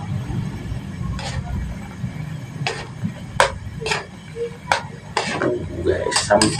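Metal spoon knocking and scraping against a wok while instant noodles are stirred in boiling water: about eight irregular knocks over a low steady rumble.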